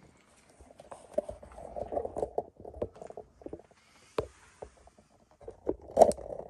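Irregular scuffs, crunches and knocks of handling and footsteps on a debris-strewn floor while a camera is set down. There is a sharp click about four seconds in, and the loudest knock comes near the end.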